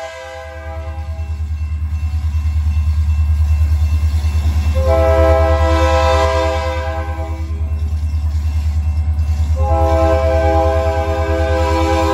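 Diesel locomotive's air horn sounding for a grade crossing: a chord tail fading in the first second, then a long blast from about five seconds in to nearly eight, and another starting near ten seconds and still held at the end. A heavy, pulsing diesel engine rumble runs beneath it as the locomotive approaches.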